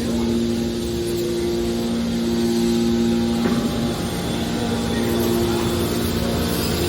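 Hydraulic can baler's pump and electric motor running with a steady hum, the hum breaking off about halfway through and returning a second and a half later as the press cycles.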